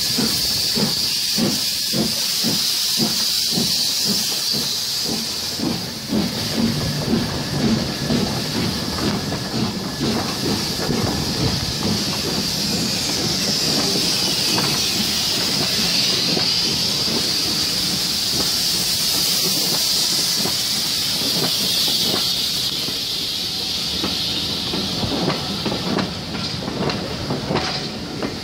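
LMS Black Five 4-6-0 steam locomotive No. 5428 pulling away with its train: a steady hiss of steam with rhythmic exhaust beats. Then the coaches roll past, their wheels clicking over the rail joints.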